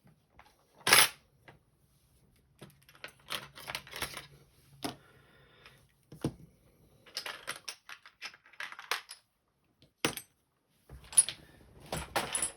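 Small metal tools and lock parts being handled: irregular clicks, taps and short rattles on a hard surface, with one sharp knock about a second in.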